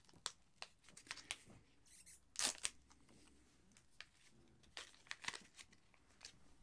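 Energy-drink powder sample sachet being torn open and handled, a string of short crinkles and tearing rustles, the longest about two and a half seconds in.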